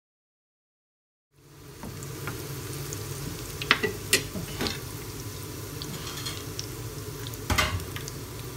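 Breadcrumb-coated potato-and-chicken cutlets shallow-frying in hot oil in a pan: a steady sizzle that comes in about a second in, with a few sharp clicks around four seconds in and again near the end.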